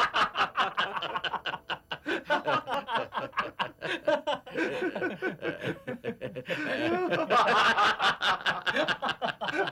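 Men laughing hard together in long runs of rapid ha-ha pulses, easing briefly a little under two seconds in.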